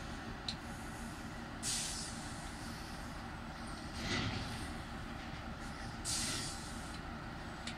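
Railway locomotive turntable turning with locomotives on its deck: a steady mechanical rumble, with three short hisses about two, four and six seconds in.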